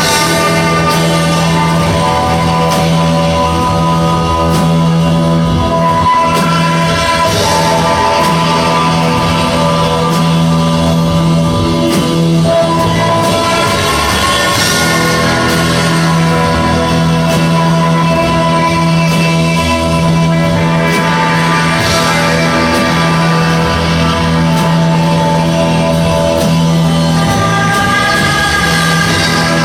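Live rock band playing: loud, sustained guitars over a steady droning low note that holds throughout.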